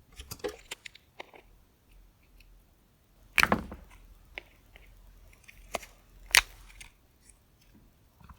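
Small plastic water-bottle lid parts clicking and knocking as they are handled and pressed back into place. There is a louder clatter about three and a half seconds in and sharp clicks near six seconds.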